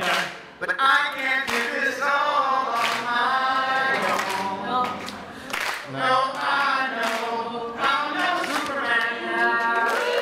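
Men singing into handheld microphones through a PA, several voices together, with a sharp beat about every second and a half.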